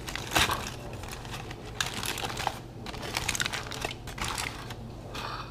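Aluminium foil crinkling as hands crumple and handle it on a plate, a dense run of quick, irregular crackles.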